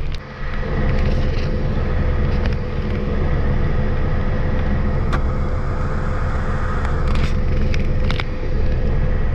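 Steady low rumble of a car's engine and tyres heard from inside the cabin, driving slowly on a wet road in the rain, with a few scattered clicks and knocks.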